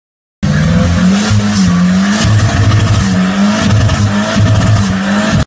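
Car engine revving up and down repeatedly with tyres squealing, as in drifting. It starts about half a second in and cuts off abruptly near the end.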